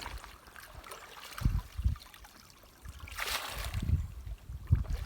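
Water splashing and trickling, with a short splash about three seconds in and a few low thumps.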